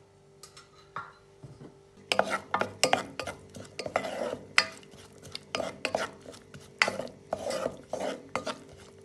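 A wooden spoon stirring chopped onion and garlic in oil in a speckled nonstick pot. The spoon scrapes and knocks against the pot in quick, irregular strokes, starting about two seconds in after a few light clicks.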